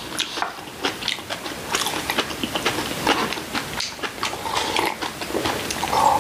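Eating sounds: chopsticks clicking and scraping on plates while picking up seasoned vegetable salad, with chewing. Near the end someone sips broth from a bowl.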